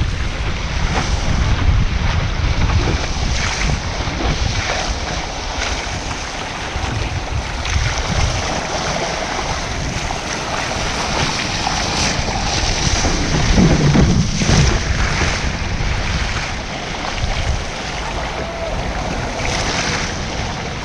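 Ocean surf and water splashing around a sea kayak, with heavy wind buffeting the microphone as a steady low rumble.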